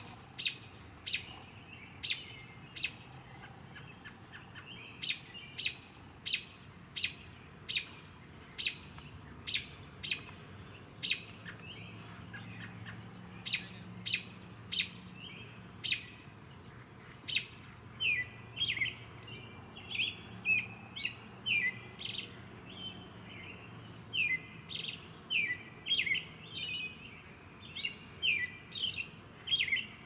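American robin calling: a series of sharp, short high notes about once a second, changing about two-thirds of the way through to quicker phrases of several notes each.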